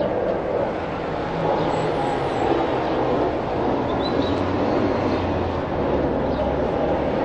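Road traffic passing, a city bus among it, as a steady noisy hum. A low engine drone grows stronger about halfway through.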